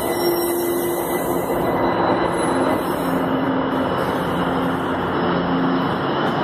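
São Paulo Metro Frota J train moving at an underground station platform: a steady rumble with humming electric motor tones that shift pitch in steps.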